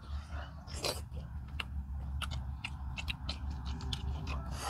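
Eating sounds: scattered wet clicks and smacks of chewing a meal of fish fry, curry and rice, over a steady low hum.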